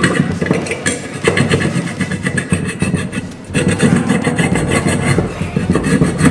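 A flat abrasive bar rasping back and forth over the rusty steel rim of an 8-inch woofer frame in quick strokes, with a brief pause a little past the middle. The strokes roughen and clean the metal so the glue for the new surround grips.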